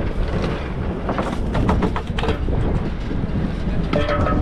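Fishing boat's engine running with a steady rumble, with a cluster of clattering knocks about one to two seconds in as the net is hauled aboard, and a brief pitched sound near the end.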